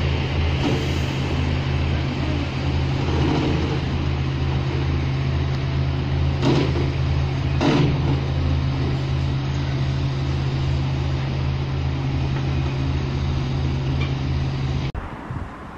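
Heavy construction machinery's diesel engine running steadily with a low, pulsing drone. About halfway through there are two loud knocks a little over a second apart. The engine sound cuts off abruptly near the end.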